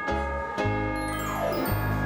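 Light comedic background music: pitched bell-like notes over bass notes about twice a second, with a falling glide about a second and a half in.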